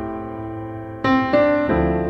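Background piano music: held chords fading away, with new chords struck about a second in and again shortly after.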